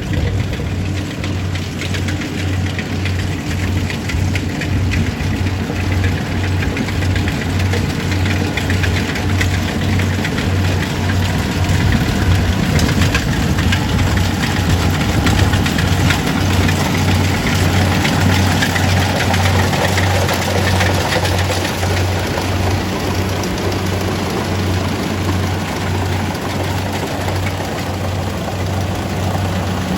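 Kubota DC-70G rice combine harvester's diesel engine running steadily, with an even low pulsing throb under the noise of the working machine.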